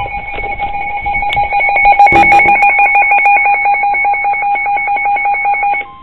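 Weather alert radio's alarm sounding for a received warning: a loud, rapid two-tone beeping, about ten beeps a second, which cuts off shortly before the end. A few handling clicks about two seconds in.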